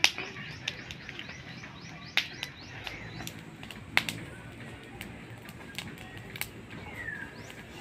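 Birds chirping in short falling calls, one longer falling call about seven seconds in, over a few sharp clicks and knocks, the loudest about two and four seconds in.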